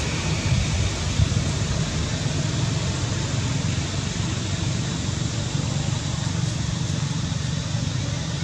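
Steady outdoor background noise: a low rumble with an even hiss over it, without distinct events.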